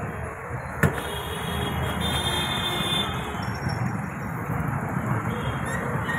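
Steady street traffic noise, a continuous rumble and hiss, with one sharp click about a second in.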